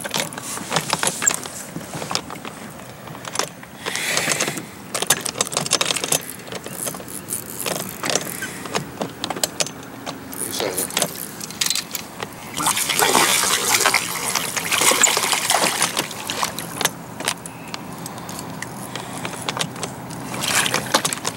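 Spinning reel cranked and clicking as a hooked fish is played, with surges of splashing water against a small boat.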